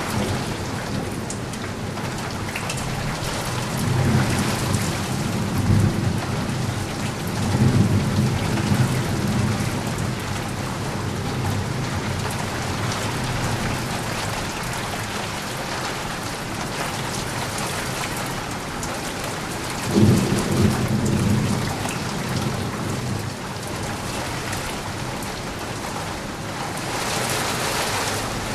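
Steady rainfall with thunder rolling through it: low rumbles build and fade over several seconds early on, and a sharper thunderclap about twenty seconds in, the loudest moment, rumbles away over the next couple of seconds.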